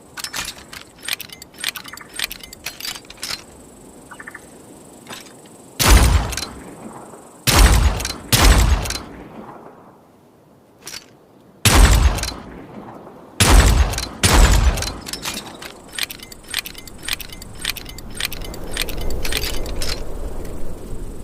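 .38 revolver being handled and fired: many small metallic clicks of cocking and the cylinder, broken by five loud sharp bangs, each with a short ringing tail, in two close pairs and one lone bang.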